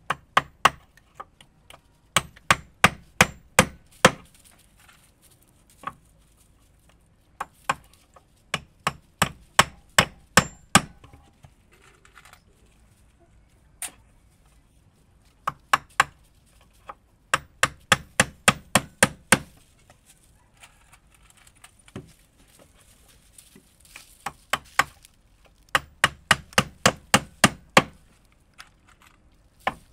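Wood being struck over and over by a hand tool: runs of sharp blows, about three or four a second, broken by short pauses and the odd single blow.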